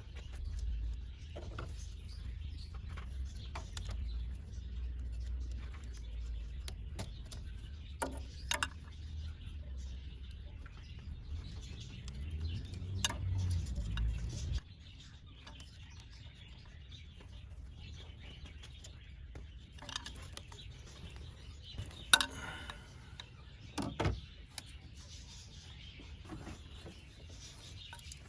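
Scattered sharp clicks and snips of hand tools working on wiring, over a low rumble that cuts off abruptly about halfway through.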